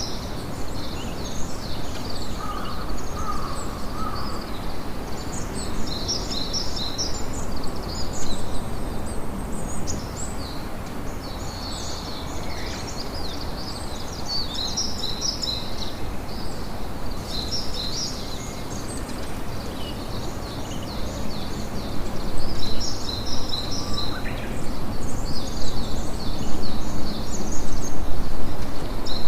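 Steady wash of sea waves and wind, with small birds chirping in quick, high series throughout. The surf grows louder over the last several seconds.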